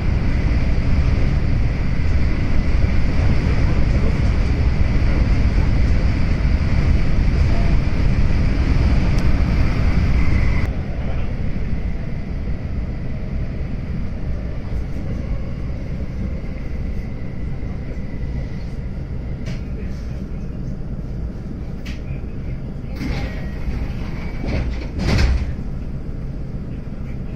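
Train's running noise heard from inside the car: a steady rumble with a thin high whine. About ten seconds in it turns quieter, and the whine fades as the train slows to a stop, with a few short clunks and bursts of noise near the end as it halts.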